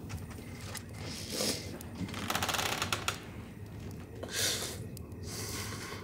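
A sleeping man's heavy breathing: four noisy breaths about a second apart, the second with a crackling rattle.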